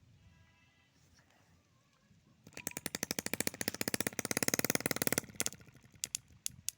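Homemade two-stroke engine built from a refrigerator compressor, firing in a fast, even string of pops that starts a little over two seconds in, grows louder, and cuts out suddenly after under three seconds. A few single sharp clicks follow near the end.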